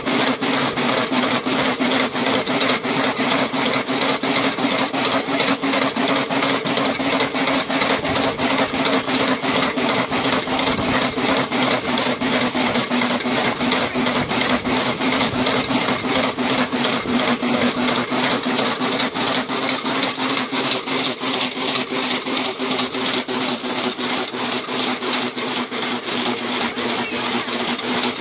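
Dog treadmill running with a dog sprinting on it: a steady hum from the moving belt under a fast, even beat of the dog's strides, about three to four a second.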